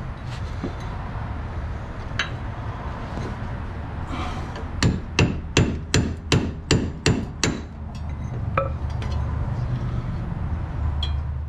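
Hammer blows: a quick run of about eight strikes in under three seconds, roughly three a second, with a few lighter single knocks before and after, over a steady low hum.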